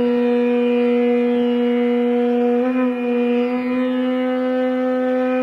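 A conch shell blown in one long, steady note, with a slight waver about halfway through.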